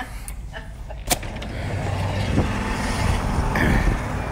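A sharp click about a second in, then the steady rumble and hiss of road traffic, which grows louder and stays.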